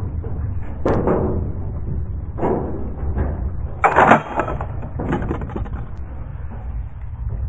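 A few sharp knocks and clacks, the loudest and most metallic about four seconds in, over a steady low rumble.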